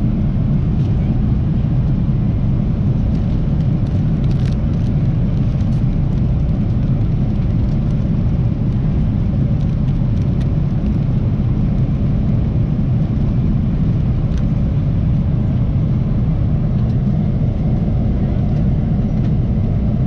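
Boeing 777-300ER cabin noise in cruise: a steady low rumble of airflow and GE90 engines, with a few faint clicks in the first few seconds.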